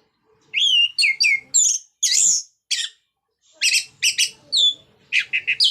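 Orange-headed thrush singing loud full song: quick clusters of sharp whistled notes, many sliding down in pitch, in short phrases with brief pauses between.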